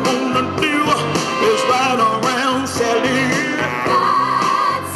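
A woman singing soul/R&B into a handheld microphone over a backing track, her voice held in long notes with vibrato.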